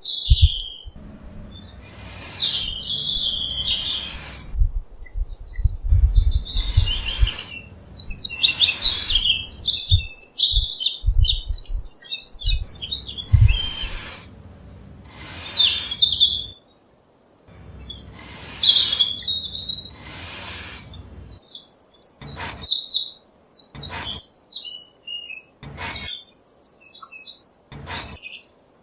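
Small birds chirping and twittering, with repeated short rasping strokes, like rubbing or scraping, that come about every two seconds in the last part.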